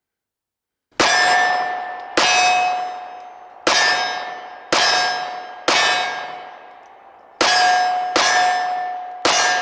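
Pistol shots ringing a steel target: eight hits, each a sharp strike followed by a clear metallic ring that dies away, spaced about one to one and a half seconds apart. The first comes about a second in.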